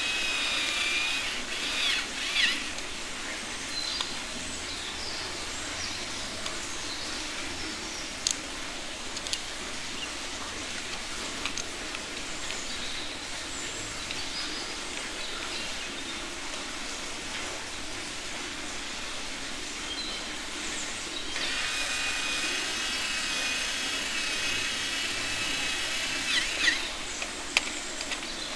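Small battery-powered toy electric drill whirring with a high, steady whine as it drives a screw into a plastic toy wheel. It stops about a second in and runs again for several seconds near the end. A few sharp plastic clicks from the parts being handled fall in between.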